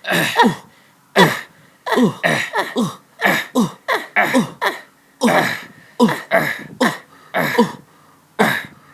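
A person's voice making a quick run of short wordless vocal cries, each one sliding down in pitch, about fifteen of them with brief gaps between.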